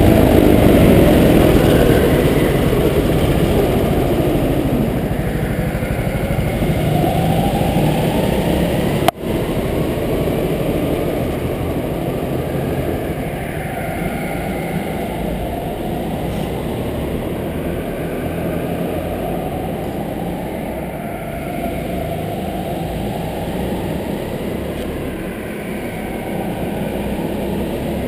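Go-kart engines running. In the first few seconds the engine's pitch falls as the kart slows. After that, kart engines drone on, rising and falling in revs. A single sharp click with a brief dropout comes about nine seconds in.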